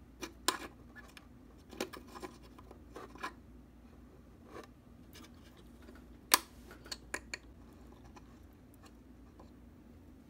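Light, irregular clicks and scrapes of pliers and a soldering-iron tip working a metal terminal tab and wire leads inside an amplifier chassis, with the sharpest click about six seconds in.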